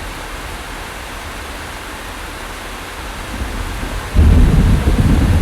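Steady rain with a hiss, joined about four seconds in by a sudden, loud low rumble of thunder that keeps rolling on.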